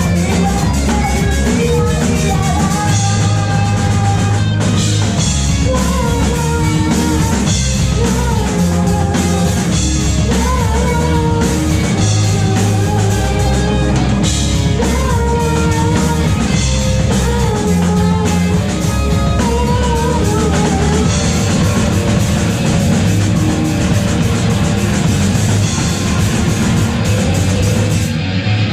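Rock band playing live: guitars, bass and drum kit with a sung vocal melody over them.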